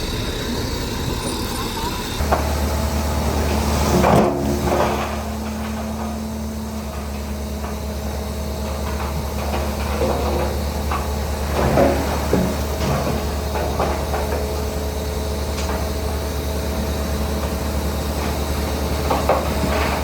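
Heavy diesel construction machinery working. A steady low engine note sets in about two seconds in, with knocks and clanks scattered through, the loudest about four seconds in and around twelve seconds.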